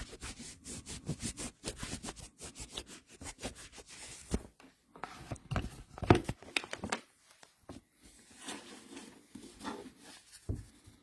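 Trading cards being handled: irregular rubbing, sliding and scraping with small clicks and taps.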